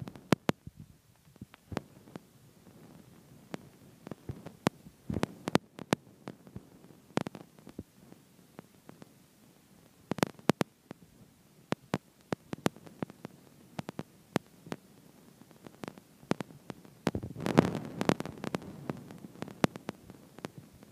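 Irregular sharp clicks and soft low thumps, with a denser low rumbling stretch near the end.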